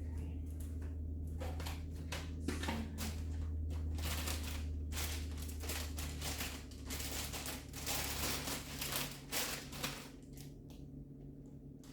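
Irregular rustling, light clicks and knocks of food containers and packaging being handled, over a steady low hum.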